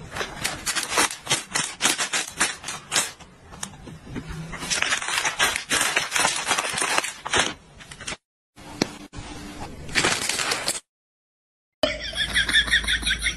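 A crinkly plastic snack bag being rustled and crumpled in a hand: a dense, irregular crackling of sharp crinkles that stops for a moment twice near the end.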